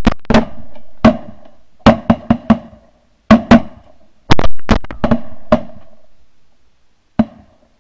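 Shotgun volley from several hunters: a rapid run of about a dozen and a half shots, some overlapping only a fraction of a second apart, each with a short booming echo, thinning out after about six seconds. One last, fainter shot comes near the end.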